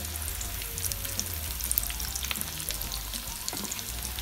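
Hot oil sizzling around vermicelli-coated chicken kebabs shallow-frying in a pan, with many small crackles, as the coating fries golden brown.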